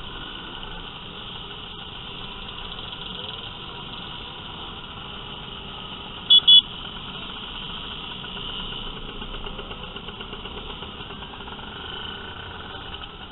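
Many scooter engines running together as a convoy rides along, a steady mechanical din. About halfway through, a horn gives two short, loud beeps.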